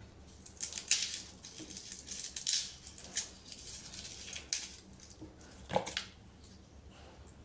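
Irregular rustling and light clicks of things being handled in a kitchen, with one duller knock about six seconds in.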